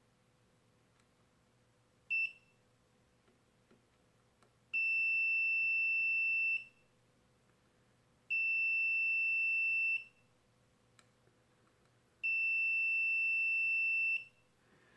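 Digital multimeter's continuity beeper sounding as its probes touch the legs of a power rectifier on an amplifier board: one short beep, then three high, steady beeps of about two seconds each with gaps between. The beeping shows low resistance across the part, which the owner takes for a shorted rectifier. Because the meter doesn't beep continuously, he is not sure it is faulty.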